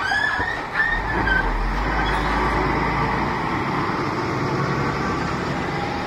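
Heavy goods truck driving past, its diesel engine rumbling low for the first few seconds, with a few short high squeals near the start.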